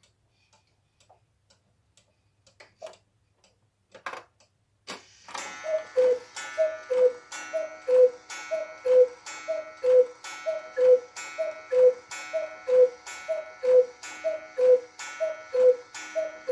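Mechanical chalet-style cuckoo clock striking twelve o'clock. Faint ticking and a few clicks from the strike train come first. Then, about five seconds in, twelve two-note cuckoo calls, high then low, about one a second, each with the clack of the bird and bellows mechanism.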